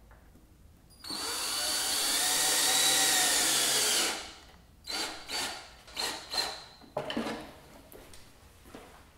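Cordless drill driving screws through the pump brackets into the wooden barrel wall. It runs once for about three seconds, starting about a second in, then gives several short bursts.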